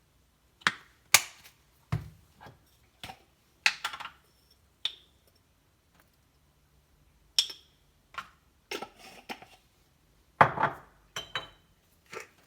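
Kitchen dishes and utensils knocking and clinking in an irregular run of sharp hits, some ringing briefly, with a pause of about two seconds in the middle.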